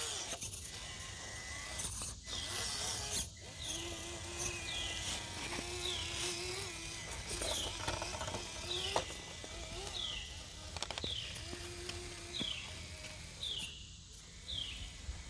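Traxxas TRX4M mini crawler's small electric motor and gears whining in short throttle bursts, some held for about a second. Over it, a high downward chirp from a bird or insect repeats about every two-thirds of a second.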